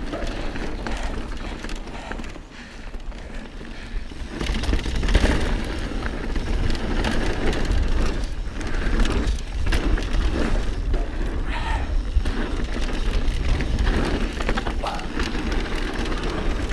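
Mountain bike riding fast down a dirt trail: tyres rolling over dirt and rock with many small knocks and rattles from the bike, and wind buffeting the microphone. It eases for a moment about two seconds in, then grows louder again.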